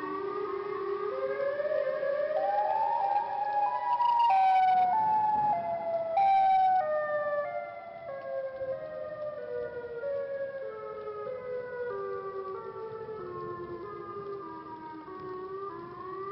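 Music: a slow line of held notes that steps upward for the first four seconds or so, then steps down one note at a time, and starts climbing again near the end.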